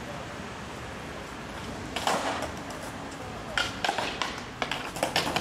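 Skateboard wheels rolling on concrete, then a run of clacks and scraping knocks as the board and its trucks hit and grind along a concrete ledge.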